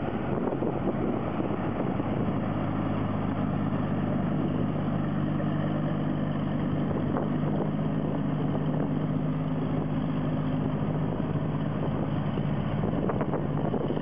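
Rice combine harvester's engine running steadily while it cuts the paddy, a constant mechanical drone.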